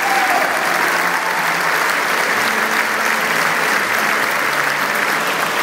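Crowd applauding: steady, dense clapping from a large audience.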